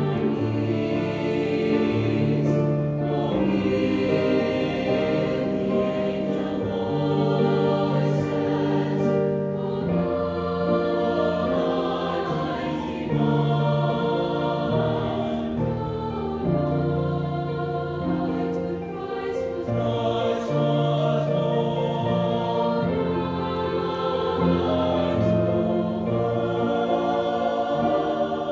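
Girls' choir singing together in long held notes, phrase after phrase.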